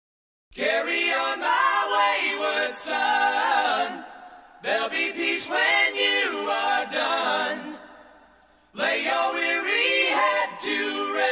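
A cappella vocal music: voices singing together without instruments, in three phrases of about three to four seconds each, with short breaks between them.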